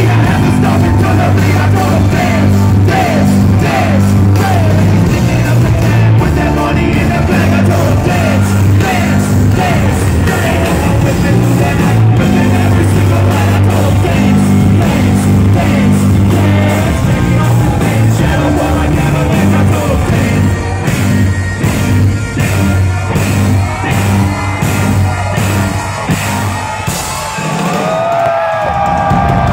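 Live band music on a festival stage, with singing and shouted vocals over a heavy bass line. About twenty seconds in, the bass drops out, leaving sharp hits and voices.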